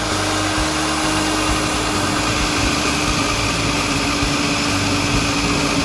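Magnetic drill running steadily as it bores holes in a steel I-beam: a constant motor hum with one held tone over an even cutting hiss.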